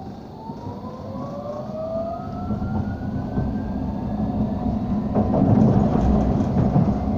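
Bombardier Incentro tram running, heard from inside the passenger saloon: its traction motor whine rises steadily in pitch over the first few seconds as the tram gathers speed. From about five seconds in, a louder rumble of wheels on rail takes over.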